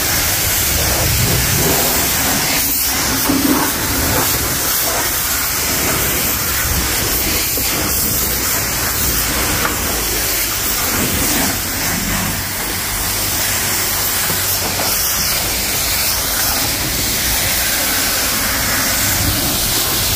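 Self-serve car wash pressure wand spraying water onto a car's body: a steady, loud hiss of high-pressure spray.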